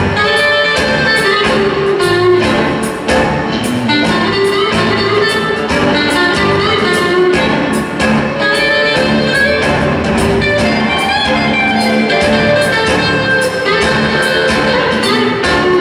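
Live electric blues band playing: electric guitars over bass guitar and a steady drum beat.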